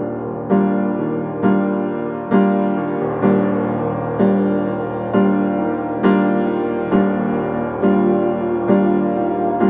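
Slow background piano music, with chords struck about once a second and each fading before the next.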